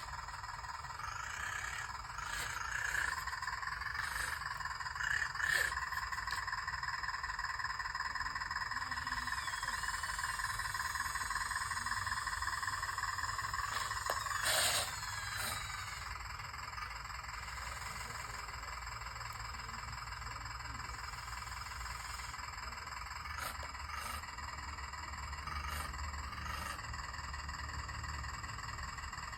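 Radio-controlled excavator working in sand: a steady mechanical whine from its motors, with scattered clicks and knocks and a louder scrape-knock about halfway through.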